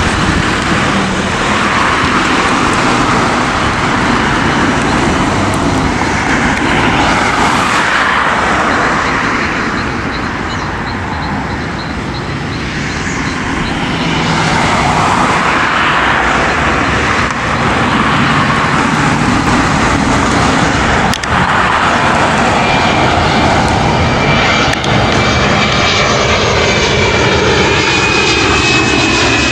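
Boeing 737-400 freighter's CFM56-3 turbofan engines on final approach: a steady jet roar, joined over the last few seconds by a high fan whine and a sweeping, phasing sound as the aircraft closes in overhead.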